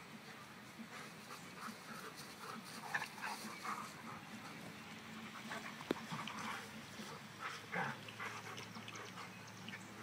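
Dogs whimpering and panting, with short faint whines scattered through and one sharp click about six seconds in.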